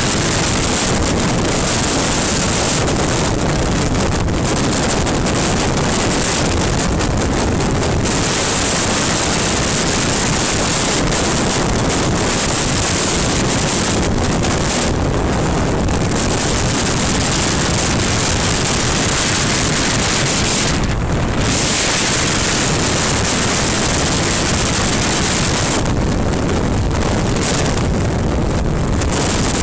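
Steady wind rush on the camera microphone of a BMW R1200GS Adventure riding at road speed, with the bike's engine and tyre noise mixed in beneath. The hiss eases and swells again a few times.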